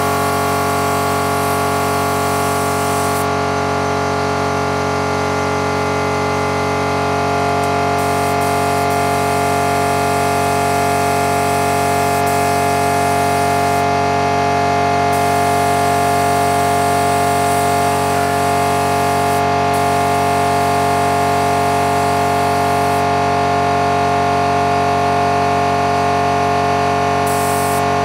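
CNC router running steadily while cutting wood: a constant whine of several held tones over a hiss, with one tone shifting slightly in pitch about seven seconds in.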